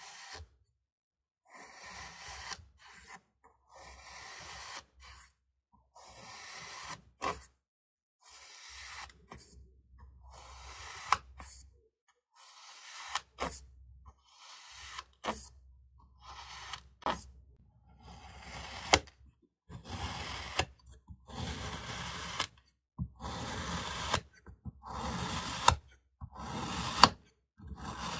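A knife slicing through kinetic sand, over a dozen cuts about one to two seconds apart. Each cut is a gritty, crunchy rasp that often ends in a sharp tap as the blade reaches the surface beneath.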